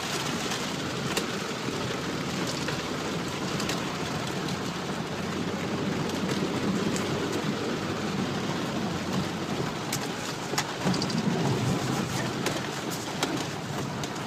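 A Toyota driving slowly over a rough, washed-out wet dirt road, heard from inside the cab: a steady low rumble of tyres and engine, with scattered clicks and knocks from gravel and rattles that come more often in the second half.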